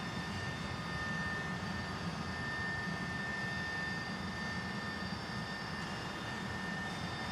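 Helicopter cabin noise: the steady drone of the engine and rotors heard from inside the cabin, with a thin steady high whine over it.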